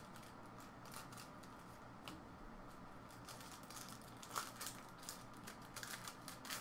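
A trading card pack wrapper being peeled open by hand, crinkling softly with scattered faint crackles. A few louder crinkles come about four and a half seconds in and again near the end.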